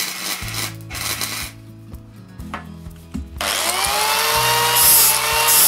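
MIG welder arc crackling for about a second and a half, then a few clicks. About three and a half seconds in, an angle grinder spins up with a rising whine and grinds on the freshly welded steel bracket, the loudest part.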